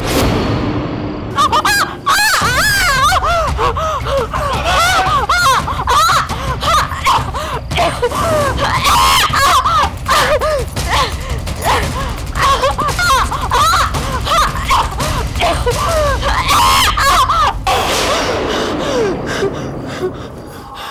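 Horror sound effect: a mass of shrill, warbling shrieks and cries over a low rumble, starting abruptly and thinning into falling wails near the end.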